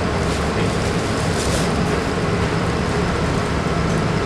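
Steady low rumbling background noise, with a brief light rustle about a second and a half in.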